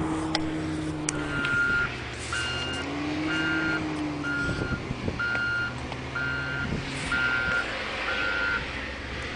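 Reversing alarm of a heavy vehicle beeping eight times, about once a second, over the vehicle's engine, which rises and falls in speed.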